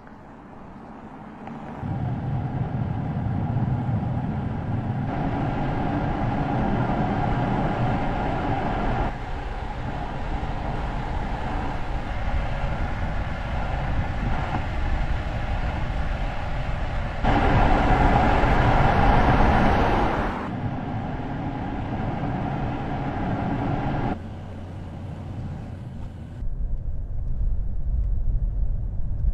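Steady running noise of a vehicle or heavy machinery, a low hum with some steady tones, changing abruptly in level and character every few seconds, loudest for a few seconds just past the middle.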